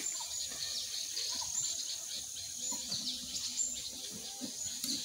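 Many small birds chirping and tweeting in short, scattered calls over a steady high insect buzz.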